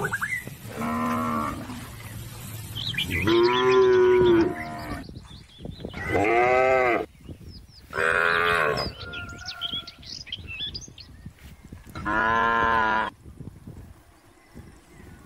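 Zebu cattle mooing: five separate moos, each about a second long and rising then falling in pitch. The second, a few seconds in, is the loudest and longest.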